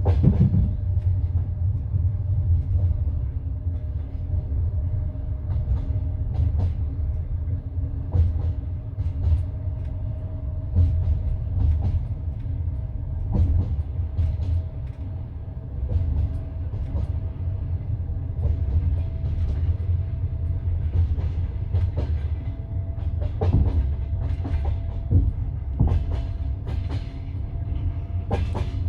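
Passenger railway carriage running on the line, heard from inside: a steady low rumble of the wheels with irregular clacks as they cross rail joints, under a faint steady whine that rises slightly in pitch.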